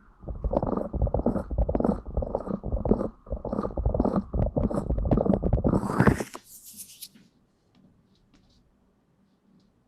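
Close, muffled rubbing and crackling right against the microphone, with small sharp clicks over it. It stops about six seconds in with a brief hiss, leaving only a few faint clicks.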